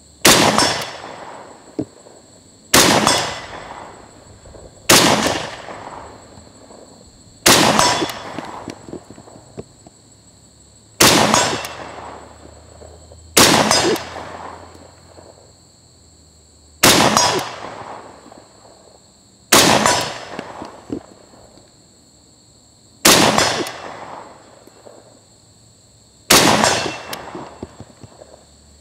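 SKS rifle firing 7.62x39 mm Tula commercial ammunition: ten aimed semi-automatic shots, a few seconds apart. Each crack is followed by an echo that dies away over about a second.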